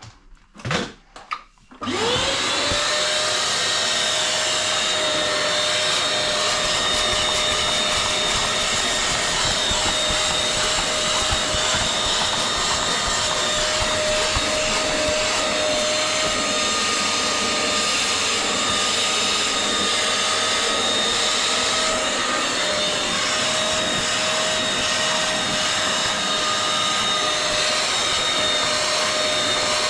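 A vacuum used as an extractor switches on about two seconds in, its motor whine rising as it spins up and then running steadily with a loud rush of air, sucking rinse water and soap out of the seat fabric.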